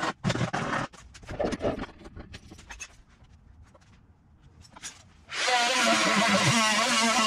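Power tool cutting the rusted sheet metal of a truck's cab corner. It starts with short cuts and scattered clicks, then from about five seconds in makes a longer, louder cut with a wavering whine.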